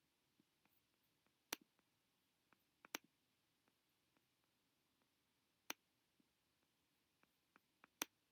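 Scattered clicks of a computer being operated: four sharper clicks a few seconds apart and several fainter ticks between them, in an otherwise near-silent small room.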